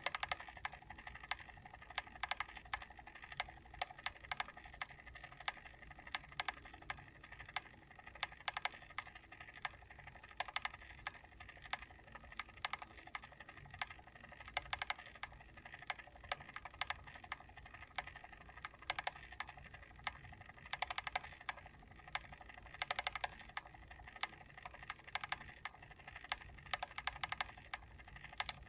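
Mechanical timer switch clicking repeatedly, the clicks coming irregularly in small clusters over a faint steady hum.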